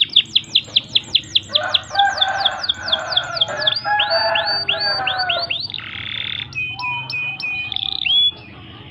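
Pied domestic canary singing: a fast trill of repeated down-slurred high notes that slows over the first few seconds, with a lower warbled phrase underneath, then a brief buzzy rasp and short high whistles before the song stops abruptly near the end.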